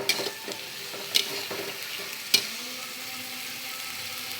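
Onion and ginger-garlic paste masala sizzling in hot oil in a pan while it is stirred: a utensil knocks sharply against the pan three times in the first two and a half seconds, then the steady sizzle carries on alone.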